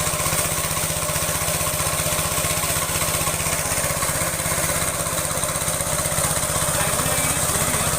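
Small engine running steadily at an even speed, driving a pressure-washer pump during a test run, with a steady hiss over the rapid firing pulses.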